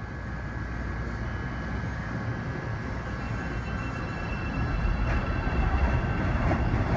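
Rapid-transit train running: a steady rumble with a thin, steady high whine, growing a little louder toward the end.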